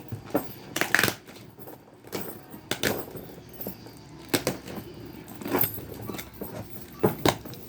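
Packaging being handled and opened: irregular crinkles, clicks and knocks of wrapping and boxes, with several sharper clicks about a second in, near the middle and near the end.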